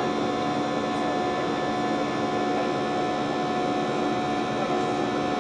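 Airliner cabin noise from a Boeing 737-800's jet engines and airflow, heard inside the cabin: a constant hum with a few steady tones held through it.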